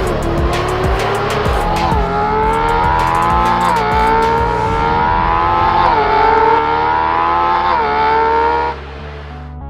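Recorded naturally aspirated V12 engine sound accelerating hard through the gears. The pitch climbs and drops sharply at four upshifts, with sharp crackles in the first half. It cuts off near the end, and soft music takes over.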